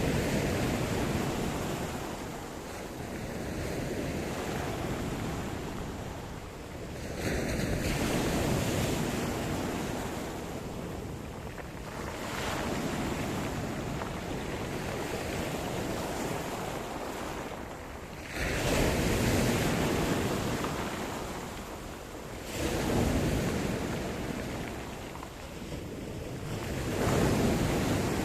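Sea surf: waves breaking and washing up the shore, a steady rushing noise that swells with each wave, about five times.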